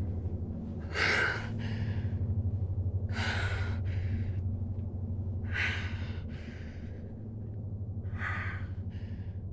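Slow, heavy human breathing: four deep breaths about every two and a half seconds, each a louder breath followed by a fainter one, over a low pulsing drone.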